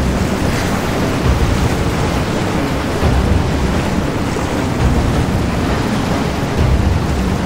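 Wind rumbling on the microphone in uneven gusts over a steady rush of water and surf.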